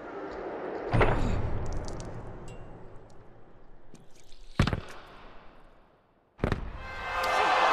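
Film sound effects: three heavy thuds a few seconds apart. After the first, a low tone slides downward. The last thud comes out of a moment of near silence and is followed by a swelling wash of noise.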